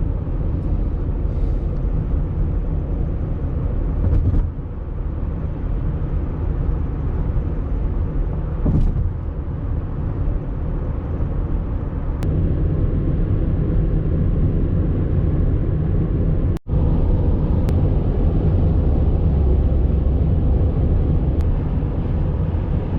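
Steady rumble of a car driving at highway speed, heard from inside the cabin. The sound drops out for an instant about two-thirds of the way in.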